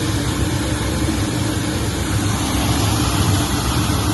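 Automatic 20-litre jar washing machine running its inner and outer wash cycle: a steady motor hum under a constant hiss of water spraying.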